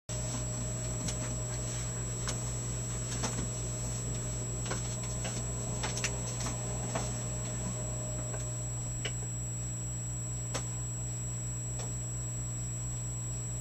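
Electric fireplace log set running: a steady electrical hum with a throbbing low undertone and a thin high whine, with scattered sharp crackle-like clicks that come more often in the first half.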